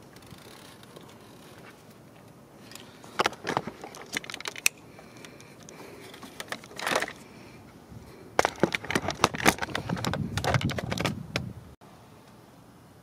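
Small hard objects being handled: bursts of clicking and rattling, with a dense run of clatter in the second half that stops suddenly.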